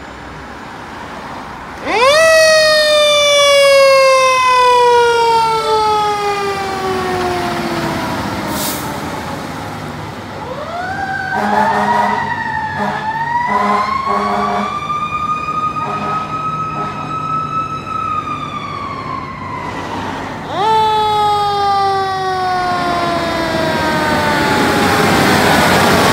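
Fire truck's siren whining up sharply and slowly winding down, three times over. In the middle it is held high for several seconds. A run of short air-horn blasts comes about halfway through.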